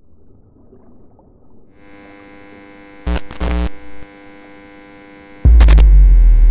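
An electrical mains buzz sets in about two seconds in, broken by a few sharp crackles around the middle. A loud, deep boom starts near the end.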